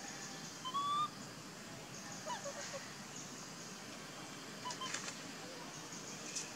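A long-tailed macaque's high coo: one rising call about a second in, then a few faint short chirps, over a steady high hiss.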